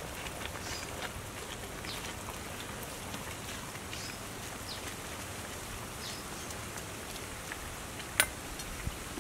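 Soup boiling in a metal cooking pot: a steady bubbling hiss dotted with small pops. A single sharp click sounds near the end.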